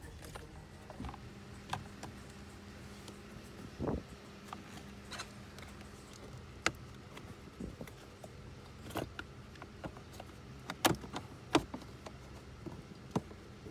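Scattered clicks and knocks of plastic air-conditioning housing parts being handled and fitted into place by hand, the sharpest knocks about 11 and 11.5 seconds in, over a faint steady hum.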